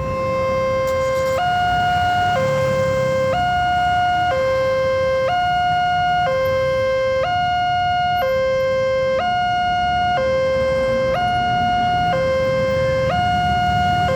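Railway level-crossing warning alarm sounding, an electronic two-tone signal that switches back and forth between a lower and a higher tone about once a second; it comes on suddenly and warns that a train is approaching the crossing.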